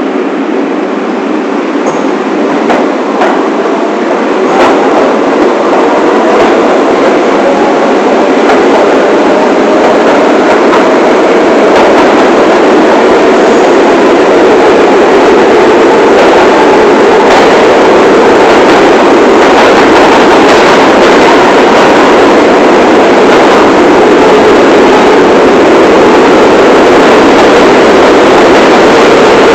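New York City subway train (1 line) running, with a steady rumble of wheels on rail that grows louder over the first several seconds and then holds, with scattered clicks from the track.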